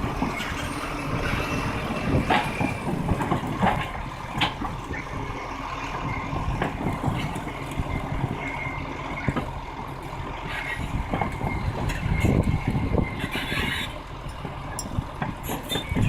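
A heavy vehicle's engine running steadily, with scattered knocks and clanks and a faint high squeal now and then.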